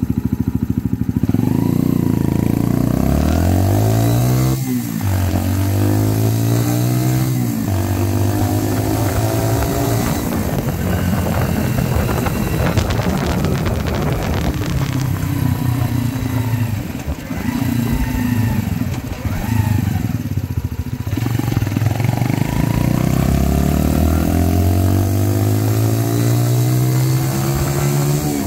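Mutt Akita 125's single-cylinder engine running through a slash cut exhaust freshly repacked with glass fibre packing, revved up and down several times, with a long rise in revs near the end. The owner thinks the repack has made it louder.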